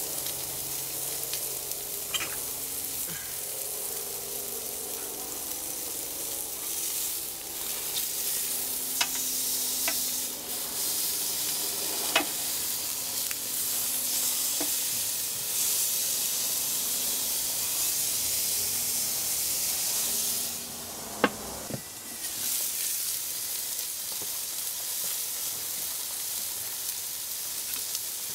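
Two steaks sizzling on grill grates: a steady hiss broken by occasional sharp pops, one much louder than the rest about three-quarters of the way through.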